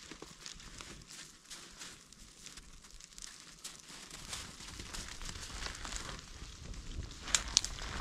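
Small kindling fire of dry twigs crackling as it catches, the crackles growing denser and louder as the flames build, with two sharp snaps near the end.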